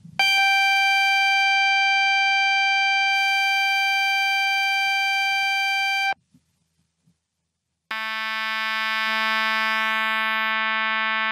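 DDSP neural synthesizer plugin playing a single high, steady note through its flute model, a clean tone with a few strong overtones, cut off after about six seconds. After a pause of nearly two seconds, a lower, buzzier note with many overtones starts through the trumpet model and is held.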